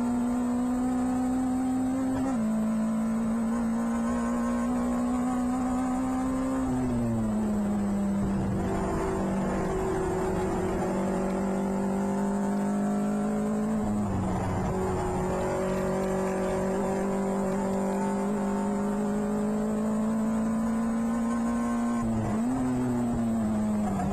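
Onboard engine of a PRB Clubman Seven-style race car running hard at high revs. Its pitch climbs slowly and falls off sharply about 7, 14 and 23 seconds in, with a smaller dip a couple of seconds in.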